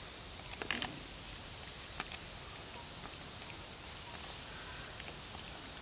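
Steady outdoor hiss with a brief crackle of rustling about a second in and a fainter tick at about two seconds, fitting a monkey moving through tall grass.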